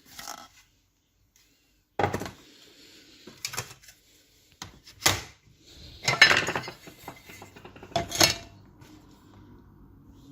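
A series of sharp metallic clinks and clatters, about five separate bursts, the loudest near the middle and near the end, with a faint low hum late on.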